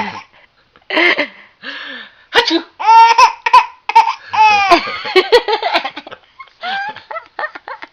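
An adult's mock sneeze, a loud spoken "achoo!", followed by a baby laughing in a run of short, hiccuping bursts.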